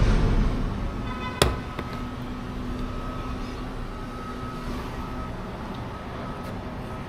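Hands-on work on a car's interior trim: a dull thump at the start, then a single sharp click with a brief ringing tone about a second and a half in, over a faint steady hum.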